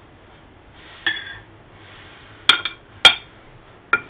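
Metal spoon clinking against a ceramic plate while boiled potatoes are spooned onto it: about five sharp clinks with a short ring, two close together about two and a half seconds in and the loudest about three seconds in.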